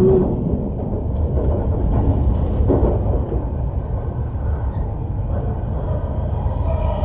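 Cabin noise of an E5 series Shinkansen on the move, heard from inside the car: a steady low rumble of the running gear on the rails.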